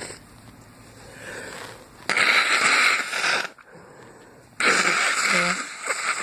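A man's two loud, harsh breaths, each over a second long with a short pause between, as an allergic sneeze builds but stays stuck and doesn't come.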